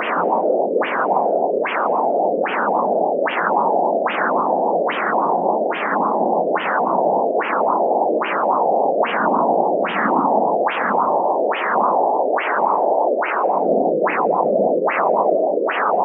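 Flat-probe CAT Doppler ultrasound playing blood flow: a sharp whooshing pulse a little more than once a second over a continuous rushing noise. This is Phase 3, venous emptying, heard with the blood pressure cuff deflated to near zero.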